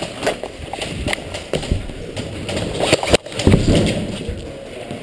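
Running footsteps and the knocking of gear against a chest-mounted camera: an irregular run of thumps and clicks.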